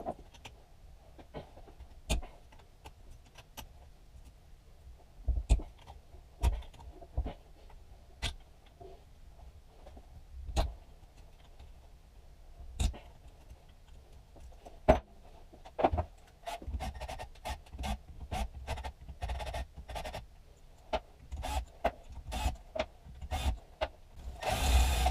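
Irregular metallic clicks, knocks and clinks of hand tools and parts being worked on a Honda Magna motorcycle engine during teardown, coming faster in the second half, with a short scraping rattle near the end.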